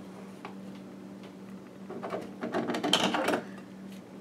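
Metal wire being bent and worked by hand against a rod section to form a line guide: a burst of rapid clicking and scraping about two seconds in, lasting about a second and a half, with a few faint ticks before it and a steady low hum throughout.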